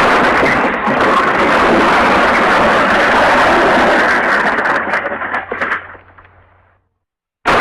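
MGM 'elephant smash' crash sound effect: a sudden loud smash that holds as a dense crashing noise for about five seconds, then dies away, and starts again abruptly near the end.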